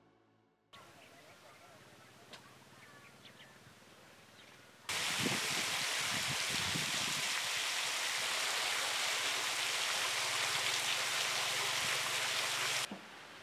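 Open-air field ambience with a few faint bird chirps, then, about five seconds in, a loud steady hiss cuts in with a few low knocks at first, and it cuts off abruptly near the end.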